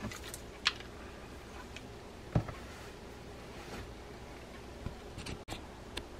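Scattered light clicks from a small lever drag fishing reel and its handle being handled and turned to unscrew the handle, with two sharper knocks, one under a second in and one about two and a half seconds in.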